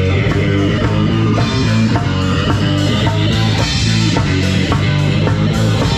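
Live rock band playing a steady beat: electric guitar over a drum kit.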